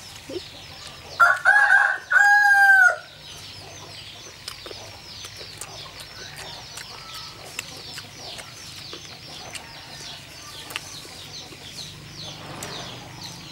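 A rooster crows once, about a second in: a loud, broken start and then a long held note that bends down at the end. Faint high chirping runs behind it.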